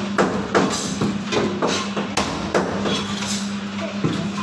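Steel meat cleaver chopping through rohu fish pieces into a wooden chopping block, with repeated sharp strikes about two a second. A steady low hum runs underneath.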